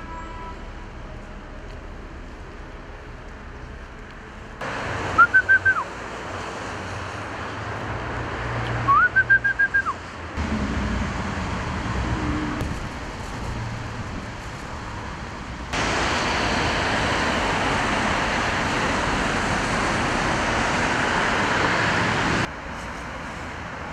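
Outdoor street ambience with a steady background hum, broken twice by a short run of four or five high chirping notes. Later a louder, even rushing noise holds for about six seconds and then cuts off abruptly.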